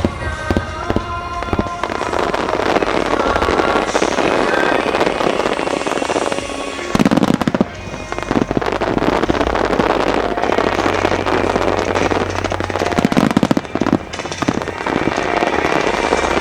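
Large fireworks display: a dense, continuous crackling of bursting shells, with heavy booms about seven seconds in and again near the end, over music played through the venue's loudspeakers.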